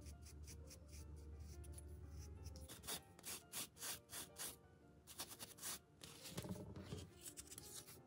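Paint brush bristles rubbing and scraping in quick strokes, about three or four a second, starting about three seconds in. The brush is wiped dry on a paper towel, then dry-brushed over the edges of a frame. Soft background music plays underneath.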